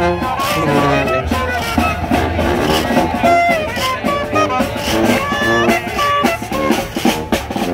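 Music with guitar over a drum beat.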